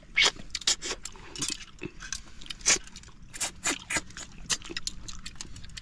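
People sucking cooked freshwater snails (ghonghi) out of their shells: many short, sharp slurps and clicks at an irregular pace, with chewing.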